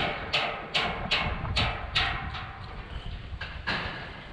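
Hammer striking steel on the Speedfloor deck: a quick, even run of sharp ringing metal blows, about two and a half a second, then a short pause and a few more blows near the end.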